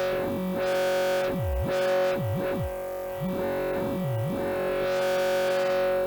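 Synthesizer sound from Native Instruments Massive, shaped live by hand on macro faders: a steady held drone with pitch glides that swoop down low and back up several times, while the bright top swells and fades.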